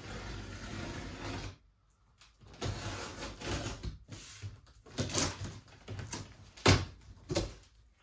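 Cardboard shipping box being opened and handled: a long scraping rustle of cardboard, a short pause, then a run of rustles and knocks, the loudest a sharp knock about two-thirds of the way through.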